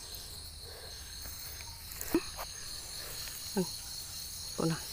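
Steady high-pitched chorus of insects such as crickets, with three brief louder sounds about two, three and a half, and four and a half seconds in.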